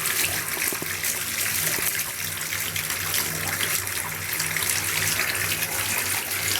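Bath tap running, a steady gush of water pouring into the tub, with a low steady hum under it.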